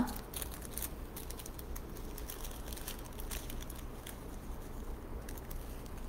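Faint rustling and crinkling of a small paper seed packet of rocket seeds being torn open and handled, over a steady low hum.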